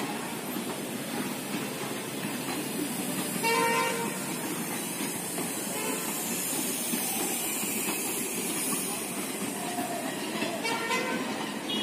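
Passenger coaches of a departing train rolling past, a steady rumble of wheels on track. A brief pitched call cuts through about three and a half seconds in, the loudest moment, and another comes near the end.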